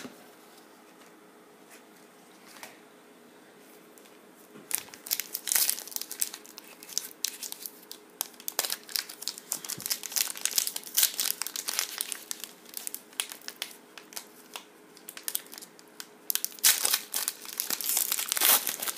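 Foil trading-card pack wrapper crinkling and tearing as it is opened by hand. A few quiet seconds come first, and the crinkling grows loudest near the end.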